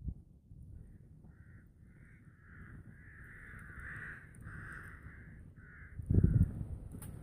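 A crow cawing, a run of repeated caws lasting several seconds, strongest in the middle. A brief loud low thump on the microphone comes about six seconds in.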